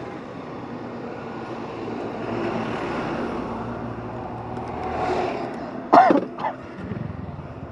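Motor vehicle engine running steadily, swelling to a peak about five seconds in. About six seconds in come two short, loud, sharp sounds close together.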